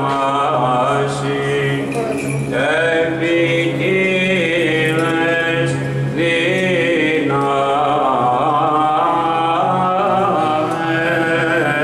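Male voices singing Byzantine chant of Orthodox vespers, the melody moving over a low note held steady throughout.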